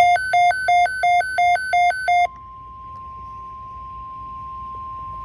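Weather alert radio sounding: a loud electronic alarm beeping, alternating between two pitches about three times a second for around two seconds. It cuts off suddenly, leaving the steady NOAA Weather Radio 1050 Hz warning tone sounding more quietly.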